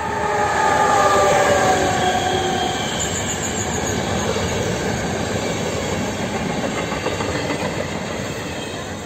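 Locomotive-hauled passenger train passing close by: a set of tones that fall slightly in pitch as the locomotive goes by about a second in, then the steady rush of coach wheels on the rails, fading near the end.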